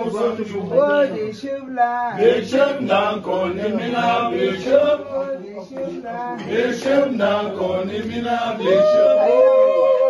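Several voices chanting together in a quick rhythmic line, then holding a long note near the end.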